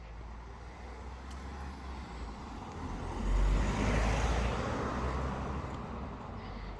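A car driving past on a road, its tyre and engine noise growing louder to a peak about halfway through, then fading away.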